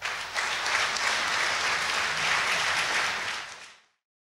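Audience applauding, fading out quickly near the end.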